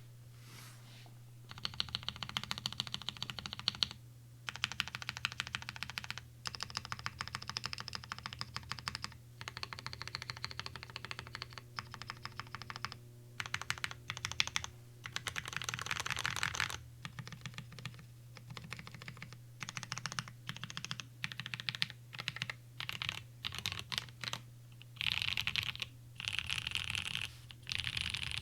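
Typing on a prototype wedge mechanical keyboard with Gateron CAP V1 switches lubed with 205g0, in a top-mounted aluminum plate: quick key clacks in runs of a few seconds with short pauses between. A steady low hum sits underneath.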